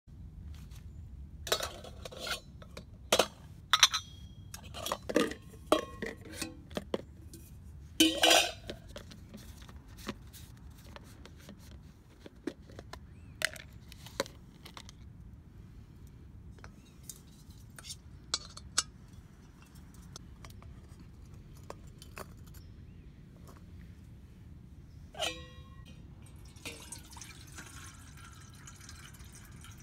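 Camping cook kit being handled: a busy run of clinks and knocks as metal and plastic stove parts are unpacked and set down during the first nine seconds, sparser taps after, and a ringing metal clink about 25 seconds in. Near the end, water pours from a bottle into a stainless steel kettle.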